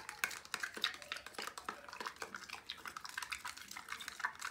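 Slime being mixed in the plastic cup of a toy slime-making kit: rapid, irregular plastic clicking and sticky clicks throughout.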